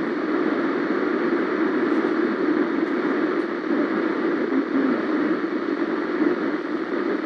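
Steady hiss of static from a weather radio receiver on a weakly received NOAA Weather Radio signal, with no voice coming through.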